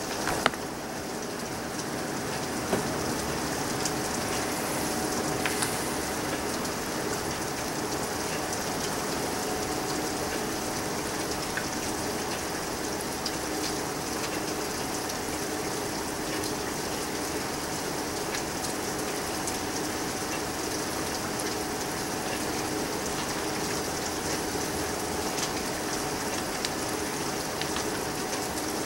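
Storm rain falling steadily, an even hiss with no letup, with a faint steady hum beneath it. A short knock comes right at the start.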